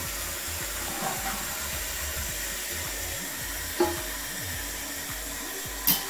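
Toilet tank fill valve hissing steadily as water runs in to refill the tank, with two brief knocks, one past the middle and a louder one near the end.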